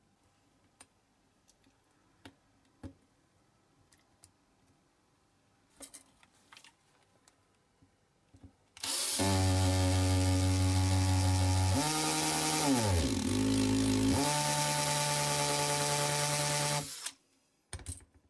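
Light clicks of small metal parts being handled, then a cordless drill runs for about eight seconds. Midway its motor slows and its pitch sags for a couple of seconds, then it picks up again and stops abruptly.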